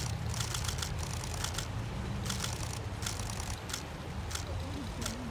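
Sharp, irregular clicks, two or three a second, over a steady low rumble.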